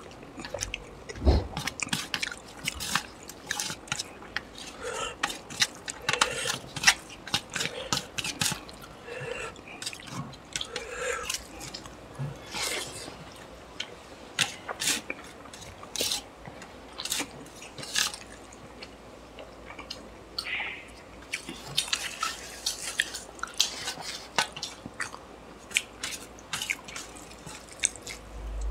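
Close-miked eating of chicken curry and rice by hand: wet chewing, lip smacks and squelching, with irregular clicks all through and a dull knock about a second in.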